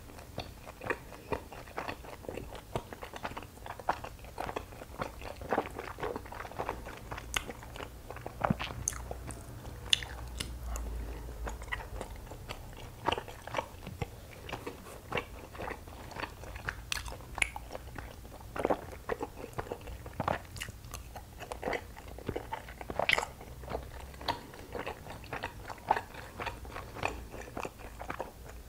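Close-miked chewing of soft, sticky Korean rice cake (tteok): a dense, irregular run of small wet mouth clicks and smacks, with a few louder ones.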